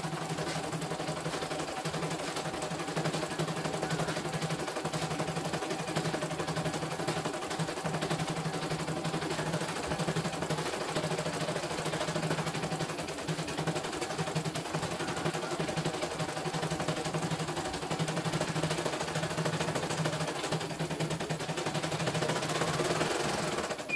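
CNY E900 portable computerised embroidery machine stitching at high speed: a rapid, steady needle clatter over a low motor hum, cutting off abruptly right at the end.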